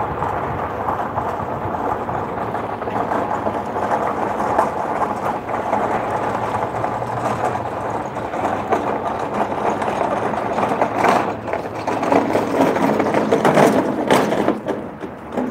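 Steady engine noise, growing somewhat louder for a couple of seconds near the end before dropping away.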